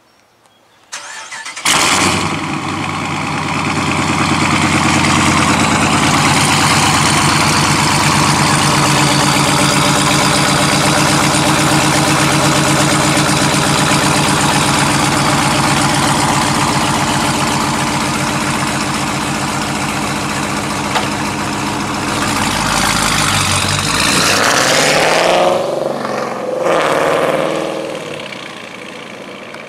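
2017 Dodge Challenger R/T's 5.7-litre Hemi V8, through an aftermarket exhaust, starting up about a second in with a loud flare and then idling steadily. Near the end it revs up and down as the car pulls away, and the sound fades as it drives off.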